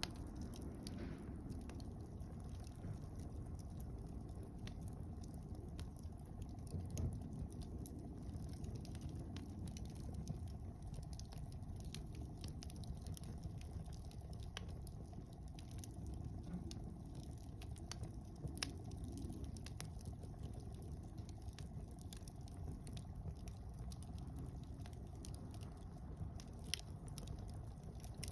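Campfire of mixed conifer and broadleaf firewood burning: a low rumble of flames with frequent small crackles and a few sharper pops scattered through.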